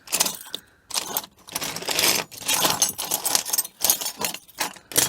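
Small metal clock parts clinking and jangling together as they are rummaged through by hand: a quick run of rattles broken by short pauses.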